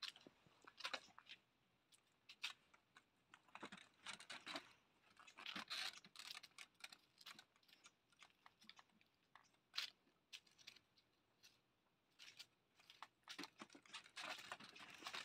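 Faint, scattered rustling and crunching in short irregular bursts from puppies moving about and playing over dry leaves, denser near the end.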